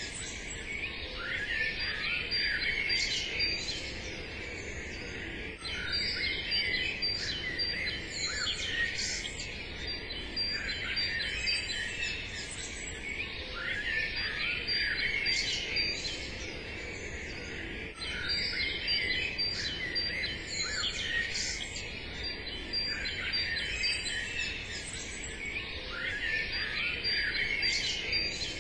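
Birdsong ambience: many small birds chirping and singing at once, in busier clusters every few seconds, over a faint steady background hiss.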